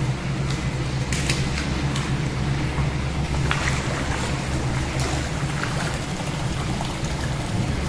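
Hot-spring source water pouring from a wooden spout into the bath, with steady splashing and rushing water and a steady low hum underneath.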